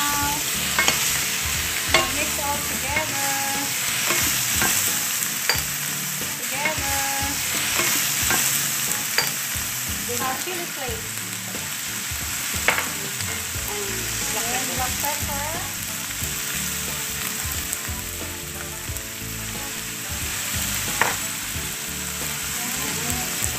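Shell-on shrimp frying in butter and oil with a steady sizzle, stirred and tossed with two wooden spatulas. A few sharp knocks come from the spatulas striking the pan.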